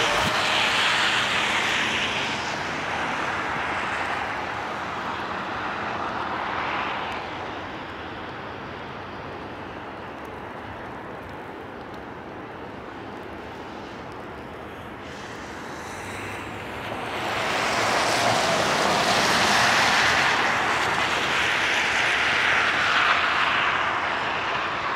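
Car traffic passing on a wet, slushy road: a steady hiss of tyres that fades after the first few seconds, stays low through the middle, then swells again for the last third as more cars go by.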